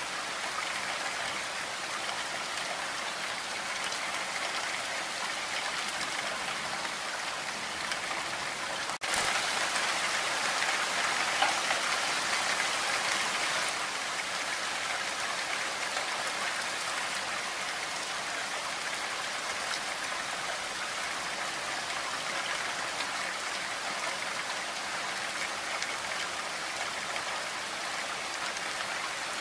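Heavy rain falling steadily, an even hiss of countless drops. About a third of the way through there is a brief break, then a few seconds of slightly louder rain before it settles again.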